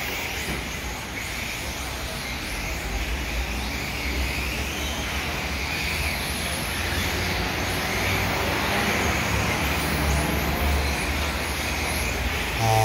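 Several 1/10-scale electric RC touring cars racing: a steady whine from their motors and drivetrains that swells and fades as the cars pass, over a low rumble. A short buzzer tone starts at the very end.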